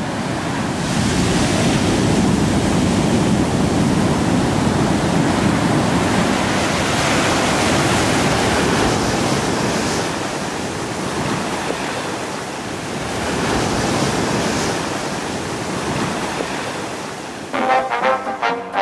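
Ocean surf washing up the sand and breaking over rocks: a continuous rushing wash that swells and eases. Brass music comes in near the end.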